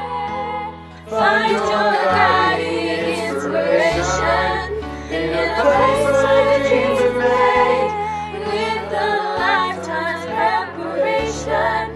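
A choir of teenage boys and girls, recorded separately and mixed together, singing a slow song over held low accompaniment notes. The singing thins briefly just before a second in, then comes back fuller and louder.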